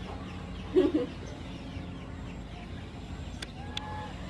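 Yard poultry calling: one short, loud call about a second in and two brief calls near the end, over a steady low background hum.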